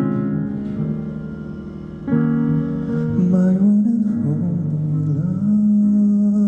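Instrumental accompaniment of a slow ballad, plucked guitar notes over sustained chords, with a new, louder chord about two seconds in.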